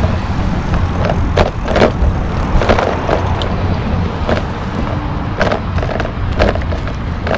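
Bicycle riding along pavement: a steady low rumble of tyres and wind, with irregular clicks and rattles from the bike.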